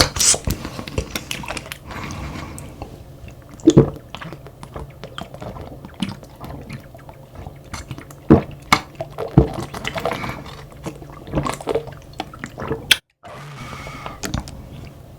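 Close-miked eating sounds: wet chewing and slurping of soup broth, with scattered clicks and knocks of spoon and chopsticks on bowls. The sound cuts out for a moment near the end.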